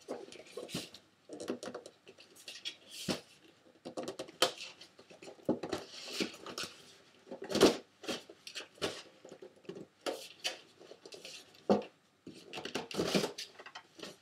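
Stuck metal 16mm film can lid being pried and twisted by hand: irregular scraping, clicking and tinny clanks, with a louder clank a little under eight seconds in.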